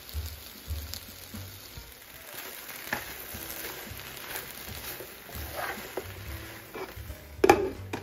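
Sliced onion, zucchini, squash and bell peppers sautéing in a nonstick skillet with a steady sizzle, stirred with a plastic slotted spatula that scrapes and taps against the pan a few times. A loud clatter near the end.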